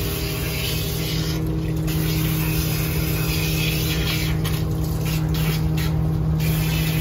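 Water spraying from a hand-held trigger nozzle onto a wet dog's coat in a stainless steel grooming tub: a steady hiss over a constant low hum. The hiss dulls a few times as the nozzle is pressed into the fur.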